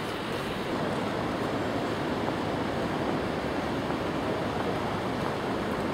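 Steady rushing noise of city street traffic, even throughout with no single event standing out.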